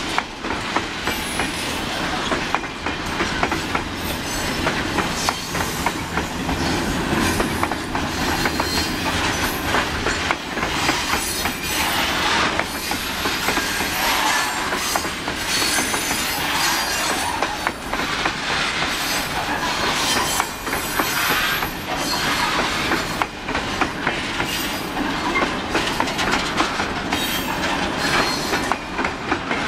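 Loaded grain hopper wagons of a freight train rolling past close by, wheels clacking steadily over the rail joints with some high wheel squeal.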